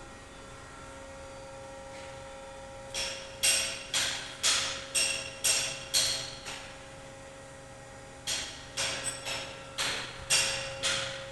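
Milling machine running with a steady hum. About three seconds in comes a run of sharp, ringing metallic knocks, about two a second. They stop briefly and start again near the end.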